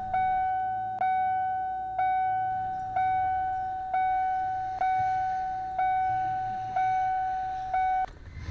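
A car's warning chime dinging one clear note about once a second, nine times, each ding fading quickly, then stopping abruptly near the end.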